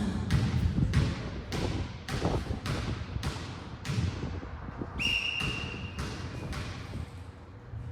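A ball thudding repeatedly on a hard court floor, about two knocks a second. A referee's whistle blows once, about five seconds in, and is held for roughly a second.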